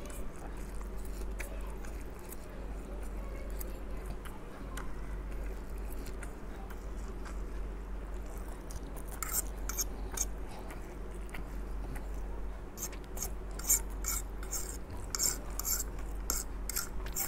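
Eating instant fried noodles with a fork: quiet chewing, then a metal fork clicking and scraping against a plate in quick runs of clinks, busiest in the second half.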